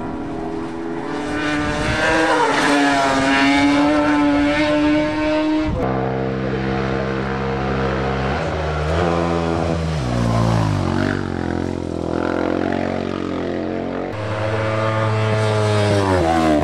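Racing engines of a competition quad and sport motorcycles at hard throttle, revving high, with the pitch stepping and falling through gear changes and lifts of the throttle. Three different runs follow one another, each breaking off abruptly into the next.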